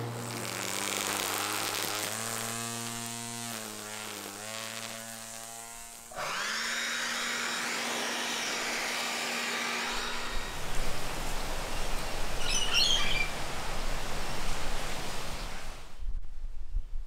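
Cordless electric lawn mower running with a steady motor whine whose pitch wavers and dips as it cuts grass. About six seconds in the sound changes abruptly to another steady whine. From about ten seconds a louder, rougher cutting noise takes over and stops suddenly near the end, with a few bird chirps around the middle of that stretch.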